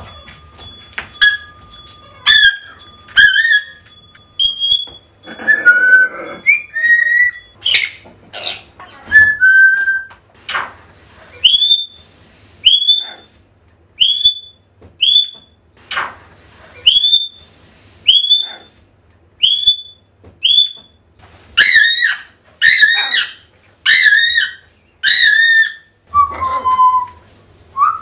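African grey parrot whistling contact calls over and over, calling out for its owner. Clicks and varied whistles come first, then a long series of identical short rising-and-falling whistles about one a second, then louder two-note whistles, and a lower drawn-out whistle near the end.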